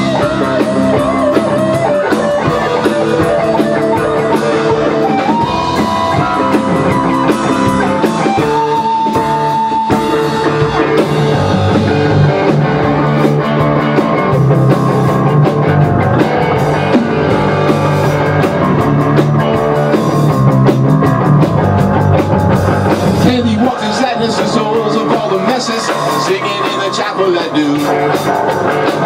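Rock band playing live: two electric guitars over a drum kit, with a guitar line of held, bending notes. The bottom end drops away about three-quarters of the way through.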